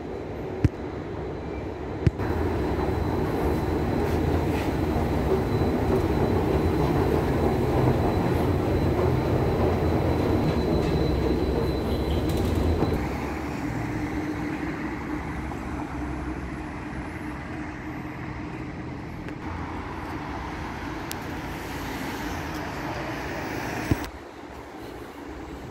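Train rumbling through an underground station, a steady low rumble with a faint thin squeal above it. The rumble eases about halfway through and cuts off suddenly near the end.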